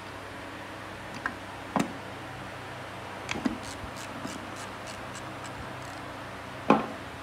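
Hand tools and metal engine parts being handled during a repair: a few scattered clicks and knocks, the loudest near the end, over a steady low hum.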